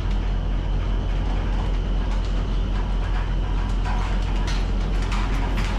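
A fishing vessel's deck machinery at the net drum and winches, running with a steady low hum and a faint steady high whine. Scattered clicks and knocks join in from about four seconds in.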